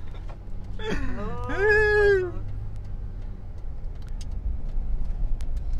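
Steady low rumble of a vehicle on the move, heard from inside the van's cabin. About a second in, a person gives one drawn-out vocal sound that glides up and then down in pitch, and a few faint clicks come near the end.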